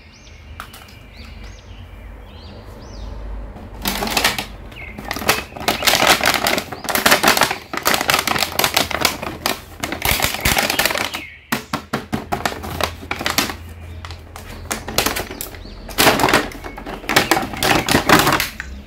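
Clear plastic toy packaging crinkling and crackling as it is handled, in bursts of dense clicks that grow loud about four seconds in, pause briefly near the middle, and return near the end.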